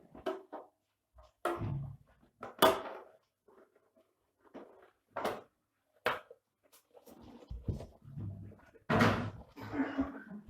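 Knocks and clatter of a UPS's plastic casing being handled and closed up, a handful of separate sharp knocks with a longer stretch of rattling near the end.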